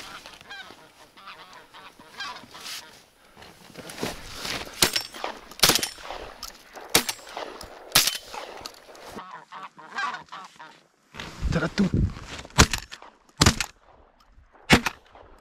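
Geese honking overhead while a shotgun is fired repeatedly at them, several sharp shots in quick succession starting about four seconds in.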